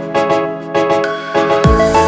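Background electronic music with sustained keyboard chords; the bass and beat drop out, and a deep kick drum comes back in near the end.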